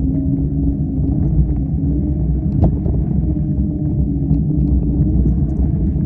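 A vehicle riding along a sandy dirt trail: a steady low rumble with a faint humming tone, and a few sharp clicks, one clear one about two and a half seconds in.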